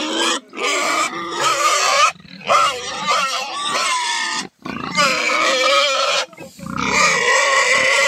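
Young pigs squealing loudly, long shrill squeals one after another with short breaks between them.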